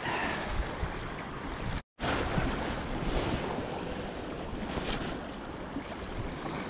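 Steady wind noise over lake waves washing against an icy shoreline. The sound cuts out for a moment about two seconds in.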